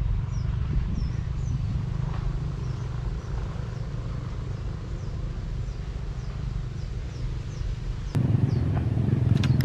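Low steady hum under a bird repeating a short, high, falling chirp about twice a second. Near the end the hum suddenly grows louder.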